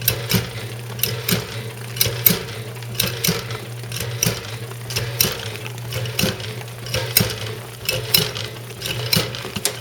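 1912 Easy washing machine running: its agitator goes up and down with a steady rhythm of knocks, about two close knocks each second, over a steady hum.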